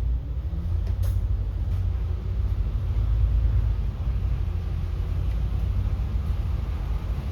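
City bus driving, heard from inside the cabin: a steady low rumble of engine and road noise, with a short click about a second in.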